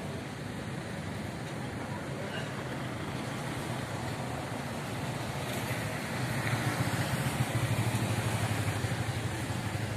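Traffic noise with a motorcycle engine running close by, louder from about six seconds in.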